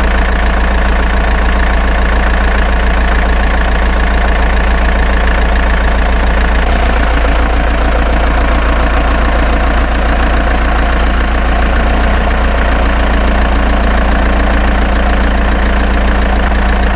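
Heavy vehicle engine running at a steady idle, an unbroken drone.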